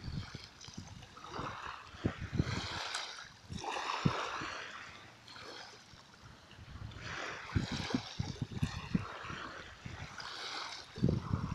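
Sea water lapping and splashing, coming in gentle surges every few seconds, with low knocks and slaps among them.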